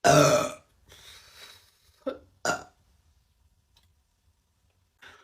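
A woman belches loudly at the start, one long low burp of about half a second. A soft breath follows, then two short, smaller burps about two seconds in.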